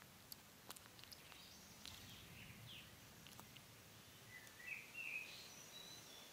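Faint ticks and rustling in grass from a European hedgehog foraging, with a short run of faint bird chirps about four to five seconds in.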